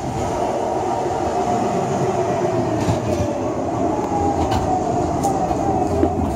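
Train running close by: a steady rumble with a whine that slowly falls in pitch, and a few sharp clicks.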